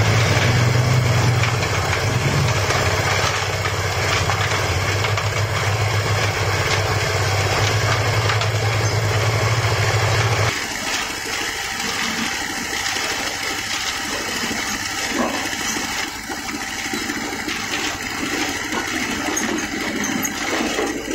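Engine-driven concrete mixer running with a steady deep engine hum. About ten seconds in the hum cuts off abruptly, leaving lighter clattering machine noise.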